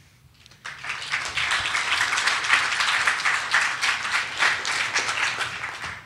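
Audience applauding, a dense patter of many hands clapping that starts about half a second in and stops just at the end.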